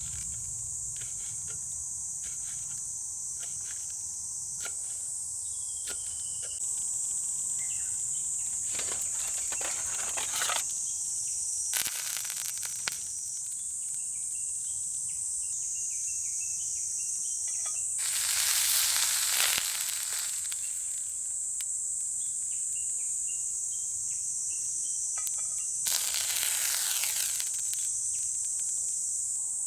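Steady, high-pitched insect chorus. Four times, a louder rushing hiss lasting a second or two rises over it.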